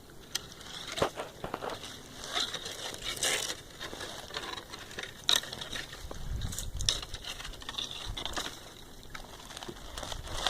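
Footsteps crunching and snapping through dry leaves and twigs on a slope, in irregular steps, with a low rumble about six seconds in.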